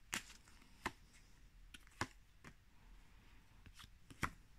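Tarot cards being handled and drawn from the deck: a few scattered soft clicks of card against card, the clearest about two seconds in and near the end.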